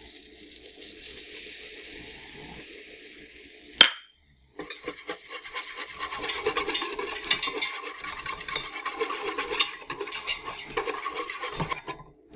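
Melted butter sizzling in a stainless steel pot, then a sharp clink about four seconds in. After a brief pause comes rapid whisking: a wire whisk scraping and clinking against the pot as flour is worked into the butter to make a roux.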